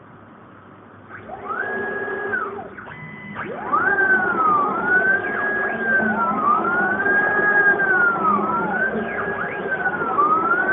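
Stepper motors of a homemade CNC machine whining in smooth, overlapping rising and falling pitch glides as the axes move along the curves of a smiley-face pattern, over a steady motor hum. It starts about a second in and gets louder at about four seconds.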